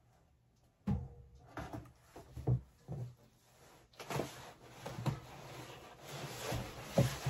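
Heavy embroidery-machine stand legs being lifted out of a cardboard box: a series of irregular knocks and bumps against the box, with cardboard scraping and rustling.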